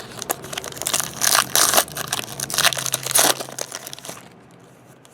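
Foil trading-card pack wrapper crinkling and tearing as it is ripped open and crumpled, a run of sharp crackles with several louder peaks that stops about four seconds in.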